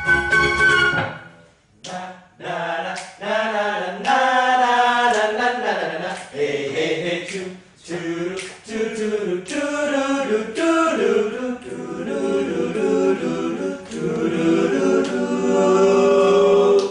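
A keroncong band's instruments stop about a second in, and after a short pause the group of men sings together unaccompanied, a cappella, in several voices.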